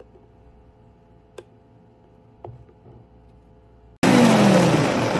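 Quiet room with a few faint clicks, then a countertop blender cuts in suddenly about four seconds in, loud, blending frozen berries, milk and ice cream, its pitch falling as it runs.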